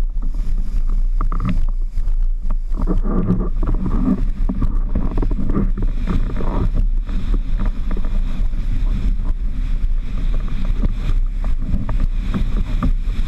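Wind rumbling steadily on the microphone, with water rushing and splashing under a windsurf board planing across choppy water.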